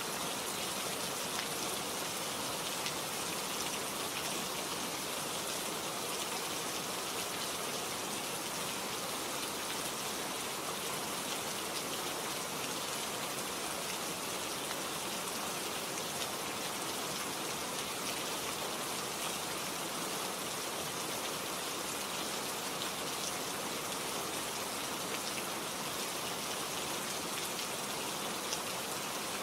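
Steady rain falling, an even hiss with scattered fine drops pattering on a surface.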